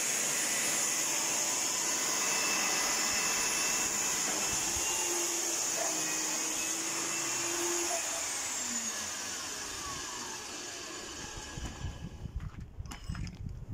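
Electric diamond core drill motor running with a steady whine, then switched off about eight seconds in, its pitch falling as it spins down over a few seconds. A few light clicks and knocks near the end.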